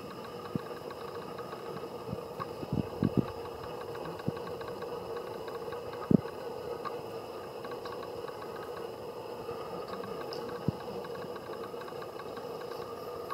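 A steady background hum with a few soft low thumps scattered through it, the loudest about six seconds in.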